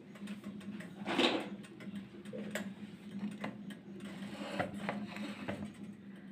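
A steady low hum, with scattered soft clicks and a short rustle about a second in.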